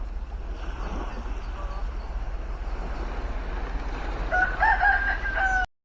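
A rooster crowing once near the end: a few short rising notes, then one long held note. It sounds over a steady low hum and wind-and-water noise, and everything cuts off suddenly just after the crow.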